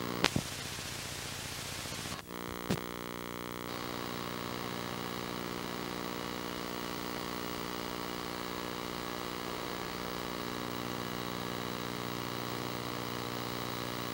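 Videotape static hiss for about two seconds, then two sharp clicks, then a steady electrical mains hum for the rest.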